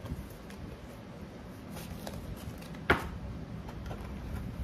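A mailing envelope being handled and opened by hand, with soft rustling and scattered light ticks and one sharp snap about three seconds in.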